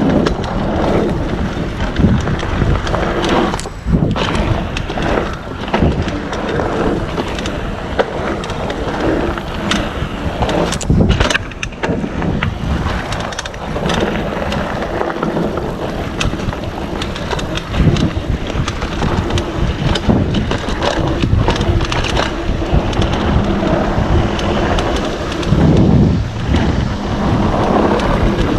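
Mountain bike riding a dirt trail: wind buffeting the microphone over tyre noise, with frequent short knocks and rattles from the bike over rough ground.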